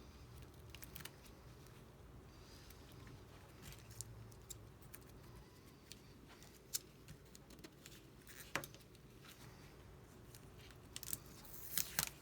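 Faint, scattered small clicks and taps of tools and parts being handled during a tablet repair, over a low steady hum. A cluster of louder clicks comes near the end.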